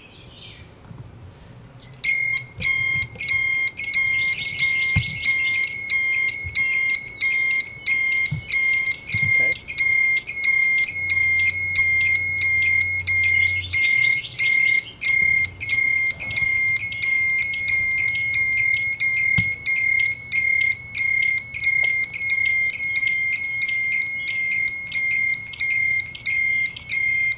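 ShockAlarm floating pool alarm sounding a loud, high-pitched, rapidly pulsing beep that starts about two seconds in and keeps going. It signals that electric current is in the pool water, here from a live extension cord put into the pool.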